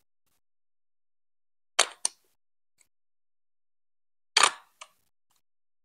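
Plastic Lego Duplo pieces being set and pressed onto a build: two quick clicks a little before two seconds in, then a louder plastic clack with a smaller click just after it about four and a half seconds in.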